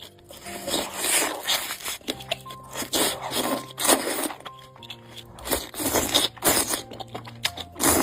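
Eating sounds from a bowl of spicy mala soup, with repeated irregular bites and crunches, over background music with held notes.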